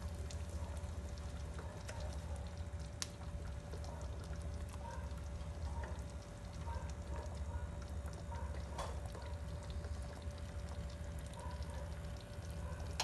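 Pot of tofu soup simmering on a gas stove: a continuous patter of small bubbles popping and ticking over a steady low rumble and a faint hum.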